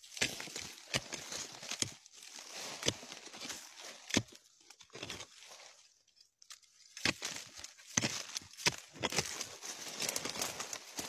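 A hand blade digging and scraping dry soil away from a large buried tuber: irregular crumbling and scraping of earth with sharp clicks of the blade. It stops for about a second and a half midway, then starts again.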